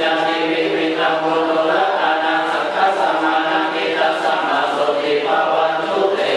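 Buddhist ritual chanting by a group of voices in unison, a steady recitation on held notes.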